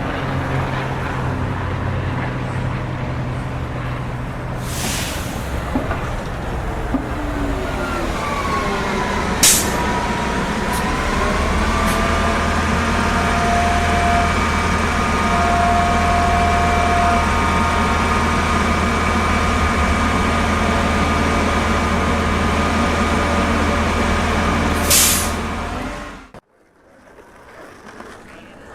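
A heavy vehicle's engine running close by in city traffic, with short air-brake hisses about five seconds in and again near the end. Around ten seconds in, a tone in the engine sound glides and then holds steady. The recording cuts off abruptly a couple of seconds before the end.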